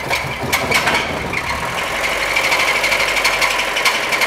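Fiat car engine running with a rattling knock, sharp knocks most marked in the first second and a half. The engine has been run with no oil left in it, and it sounds almost as if it had no oil.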